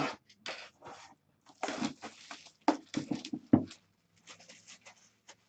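Packaging being opened and handled by hand: irregular rustles and scrapes with a few sharper bursts, busiest in the middle and thinning out near the end.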